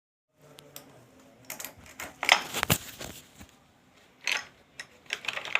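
Irregular metallic clicks and clinks of metal tools and parts being handled, with a few louder clanks around the middle.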